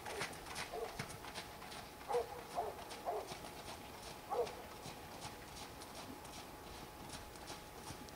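Distant horse's hoofbeats on a wet sand arena, a faint quick rhythm of ticks, with a few short pitched calls between about two and four and a half seconds in.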